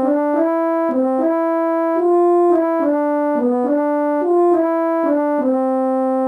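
Music: a simple melody of single held notes in one clean, steady tone, moving up and down a few notes a second.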